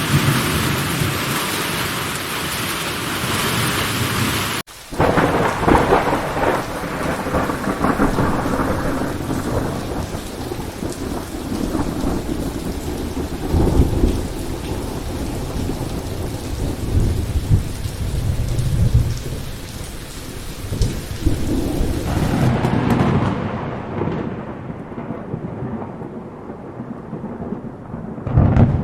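Thunderstorm: steady rain falling with repeated low rolls of thunder. The rain hiss cuts out for a moment about five seconds in, then returns. Later the rain fades away, leaving the thunder rumbling, and a louder roll comes near the end.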